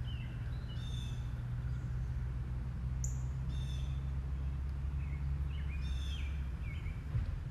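Small birds chirping, short calls and trills repeating every second or so, over a steady low rumble.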